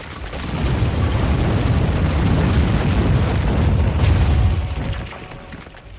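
Deep rumbling and crashing of rock breaking apart, a cartoon sound effect, swelling about half a second in and fading away near the end.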